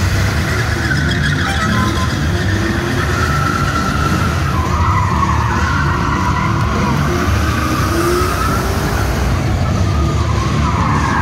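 Holden stunt ute drifting in circles: tyres squealing continuously, the squeal's pitch wavering up and down, over a hard-revving engine.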